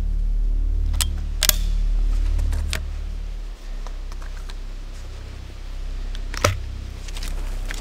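A few sharp clicks or snaps, four in all, over a steady low rumble.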